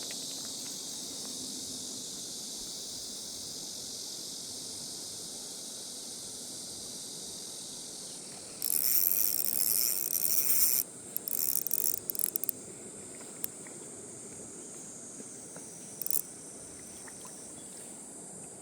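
Summer insects buzzing steadily at a high pitch and slowly fading. About halfway through, a louder high buzz runs for about two seconds, breaks into short stuttering spurts, and comes back briefly near the end.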